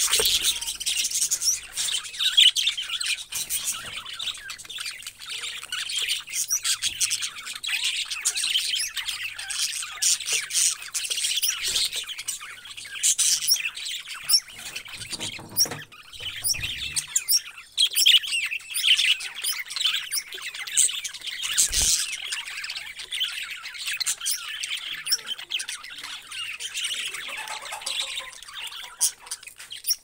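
Many budgerigars chattering together: a constant stream of quick, overlapping high chirps and warbles.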